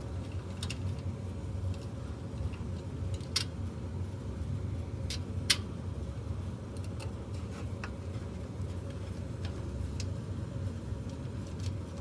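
Scattered small clicks and taps of a screwdriver backing out the screws that hold a squirrel-cage blower's motor, the sharpest about five and a half seconds in, over a steady low hum.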